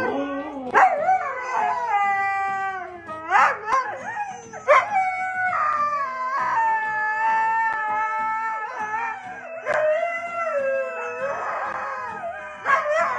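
A dog howling: several long drawn-out howls whose pitch slides up and down, broken by a few short, sharp breaks.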